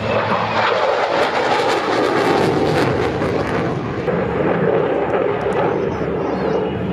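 Jet fighter flying past overhead: steady rushing jet-engine noise.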